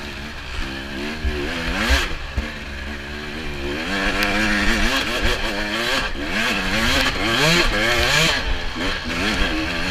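Dirt bike engine under race load, its pitch rising and falling over and over as the throttle is worked through slippery mud, with a louder, noisier stretch through the middle.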